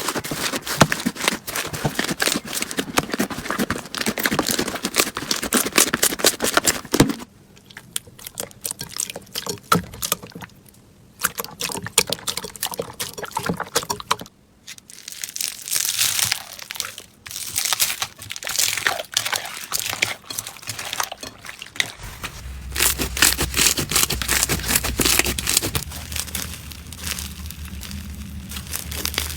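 Slime being squeezed, pressed and stretched by hand, giving dense crackling and crinkling with short pauses between handlings. A low steady hum joins in about two-thirds of the way through.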